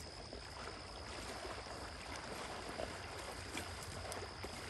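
Faint water lapping and sloshing as a retriever dog paddles across a pond, over an even outdoor hiss and a faint steady high tone.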